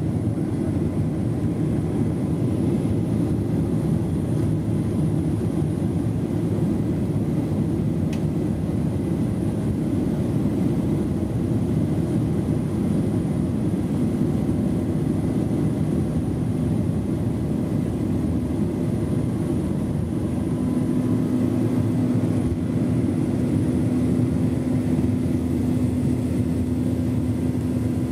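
Airliner engines and airflow heard inside the cabin during takeoff and climb-out: a steady, loud low rumble, with a steady hum that comes in about halfway through and grows stronger near the end.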